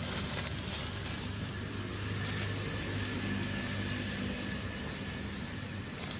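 Steady background rumble with a low hum running through it and a faint, thin high tone above.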